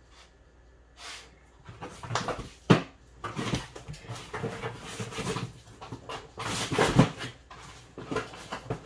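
A dog panting and whimpering close by in irregular bursts, with two sharp knocks.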